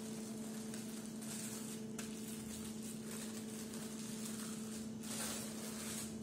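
Plastic film rustling and crinkling under the hands as a ground-beef roll is rolled up in it, louder in a few soft patches, over a steady low hum.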